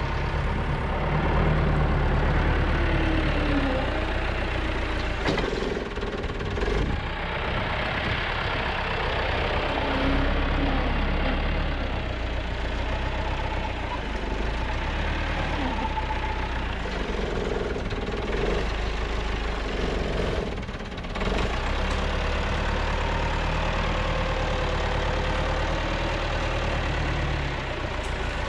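Heavy tractor engine running steadily.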